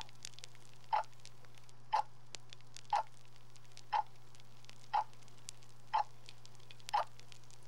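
A clock ticking steadily, one tick a second, over a steady low hum.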